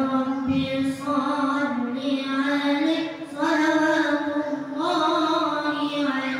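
A boy singing solo and unaccompanied, holding long ornamented notes in several phrases, in the style of an Islamic devotional chant.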